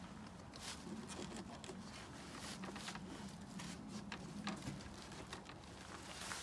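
Faint scattered clicks, taps and rustles of the plastic air intake hoses and air filter housings being handled and fitted back on a Mercedes-Benz C300's engine.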